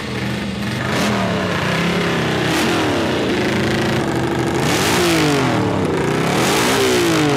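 Motorcycle engine running and being revved a few times, its pitch rising and falling with each blip of the throttle.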